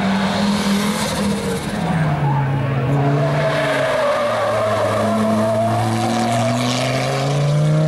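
Audi Quattro rally car's turbocharged five-cylinder engine. Its revs drop about two seconds in as it slows into a tight turn, hold low and steady through the corner, then rise again near the end as it accelerates away, with tyres squealing through the turn.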